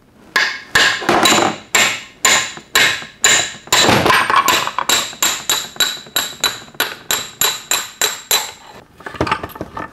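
Hammer driving a punch against the countershaft of an early Borg-Warner T10 four-speed transmission: a steady run of metallic hammer blows, about three a second, that stops about eight and a half seconds in. The blows are knocking the countershaft out of the case so the counter gear drops down.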